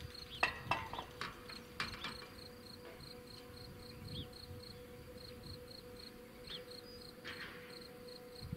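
Level crossing's electronic warning bell sounding rapid, high-pitched beeps, about four a second, signalling that the barriers are down and a train is approaching. A few sharp clicks and knocks in the first two seconds.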